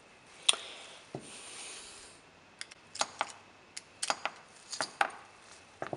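Small steel revolver parts and a screwdriver clicking and clinking as the frame of a Colt open top revolver is handled during disassembly. A sharp click about half a second in, a brief rubbing, then a run of light, irregular clicks.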